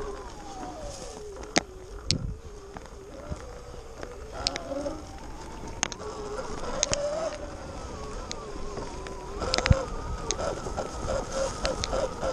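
Sur-Ron Light Bee X electric dirt bike's motor whining, its pitch sliding up and down as the bike speeds up and slows on the trail. Sharp knocks come from the bike going over bumps, the hardest near ten seconds, and a rapid pulsing sets in near the end.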